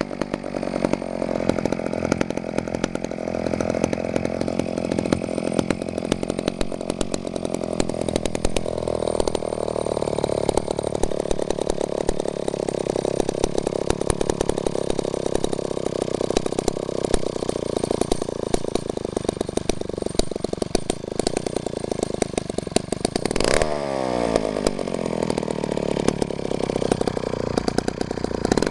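Vintage McCulloch 1-50 two-stroke chainsaw engine running at steady speed, rising a little about a third of the way in. Near the end the throttle is blipped once and the revs fall away.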